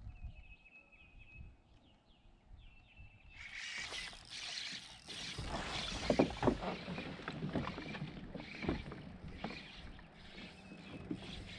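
An angler fighting a bass of about four pounds from a fishing kayak. After a quiet start, from about three seconds in there is a sudden rush of rustling, reel and line noise and sharp knocks against the kayak, loudest a couple of seconds later, until the fish comes unhooked.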